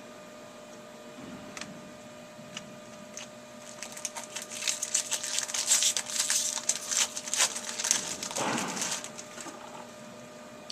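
Trading cards and their pack wrapper being handled: a few separate ticks, then from about four seconds in a quick run of clicks and rustles that dies away shortly before the end.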